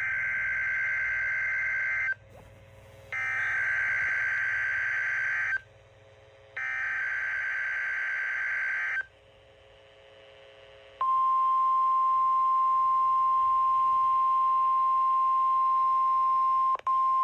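NOAA Weather Radio Emergency Alert System signal. Three repeated bursts of screeching digital data tones (the SAME header) are followed by the long, steady, single-pitched 1050 Hz weather radio alarm tone, which has one momentary dropout near the end. Together they herald a severe thunderstorm watch.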